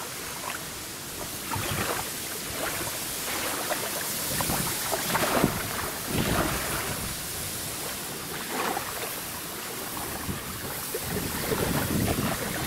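Wind gusting over the microphone, with small waves lapping at the shore in soft swells every second or two.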